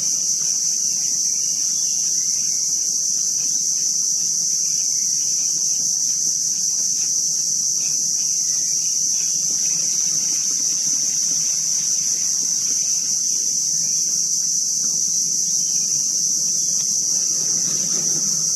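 Steady, high-pitched chorus of insects (crickets or cicadas) droning without a break.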